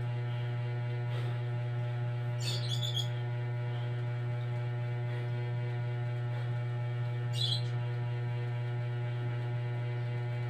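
A steady electrical hum, with two short bursts of high chirping, like a small bird, about two and a half seconds in and again about seven and a half seconds in.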